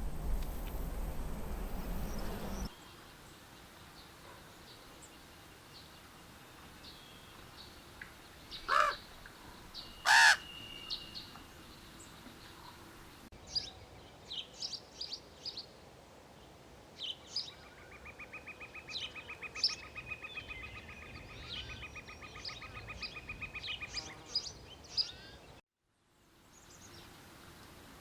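Birds calling: two loud calls about a second and a half apart, then many short high chirps and a buzzing trill lasting several seconds. A loud low rushing noise at the start stops abruptly.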